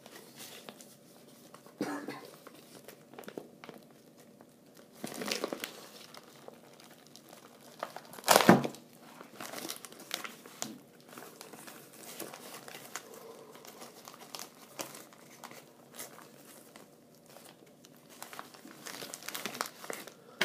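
Plastic poly mailer crinkling and crumpling as hands grip and pull at it to get it open, in irregular bursts, with one much louder burst about eight seconds in.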